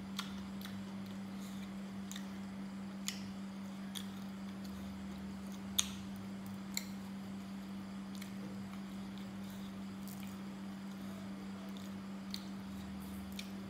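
Quiet eating sounds: scattered sharp clicks and smacks as food is chewed and picked apart by hand, the loudest a little before the middle, over a steady low hum.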